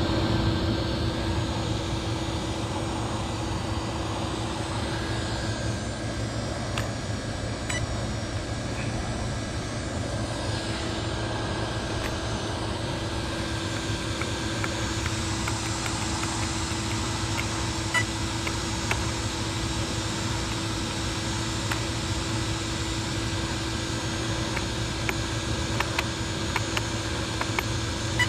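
Steady mechanical hum and hiss with a constant low tone, and a few short light clicks, most of them near the end, as the car's parts are handled.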